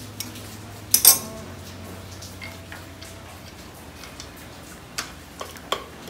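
Pliers clanking against the metal bracket of an electric horn: one sharp metallic clank about a second in with a short ring, then a few lighter clicks near the end, over a steady low hum.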